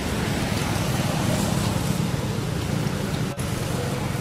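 Steady low rumbling outdoor background noise, cut by a brief dropout about three seconds in.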